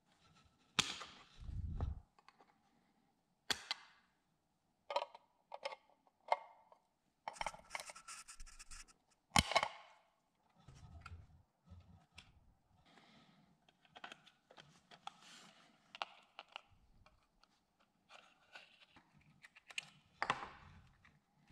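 Irregular clicks, taps and short scrapes of a vintage Auri flashlight's rusted-then-repainted steel case and hinged front being handled and fitted together, with a few dull thumps; the loudest is a sharp metal click about nine seconds in.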